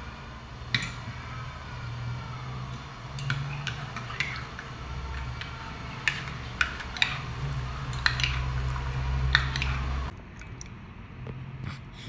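A metal spoon stirring in a ceramic mug, clinking sharply against its side about ten times at uneven intervals, over a low steady hum.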